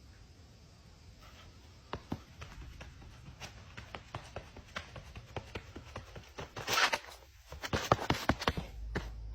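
Irregular run of short taps and clicks that grows denser and louder, with a brief rustle partway through and a cluster of sharper knocks near the end.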